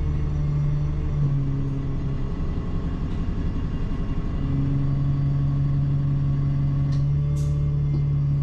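Service bus running, heard from inside the passenger cabin: a steady engine and drivetrain hum that shifts pitch about a second in and again about four and a half seconds in as the bus changes speed.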